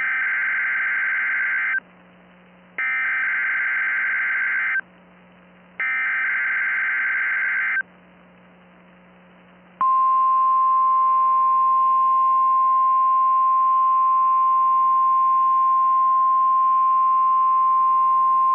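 NOAA Weather Radio alert header (SAME): three two-second bursts of data tones, a second apart. About ten seconds in, the steady 1050 Hz weather radio warning alarm tone starts and holds for about nine seconds. This is the alert sequence of a routine weekly test.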